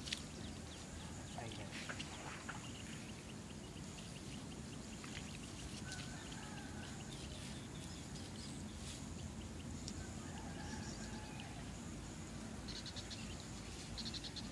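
Outdoor ambience: a steady low background noise with a few short, faint animal calls, about six seconds in and again around ten seconds in.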